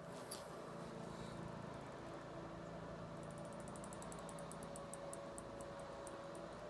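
Faint steady electrical hum, with light high-pitched ticking from about three seconds in.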